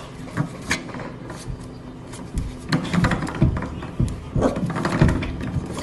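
Spring doorstop at the foot of a door twanging and rattling as a puppy bats it with its paw, several sharp low boings in the second half.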